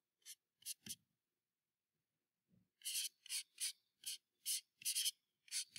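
Faint scratching of a stylus writing on a pen tablet, in short strokes: a few near the start, then a quick run of about a dozen strokes through the second half.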